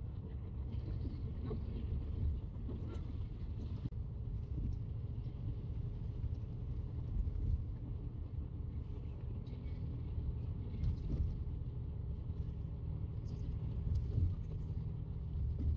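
Steady low rumble of a highway coach in motion, with engine and road noise heard from inside the passenger cabin.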